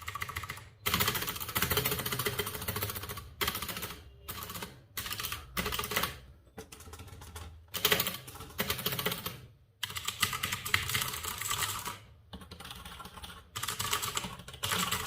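Fast typing on a Cosmic Byte GK16 Firefly mechanical keyboard with clicky blue switches: runs of rapid keystroke clicks broken by short pauses.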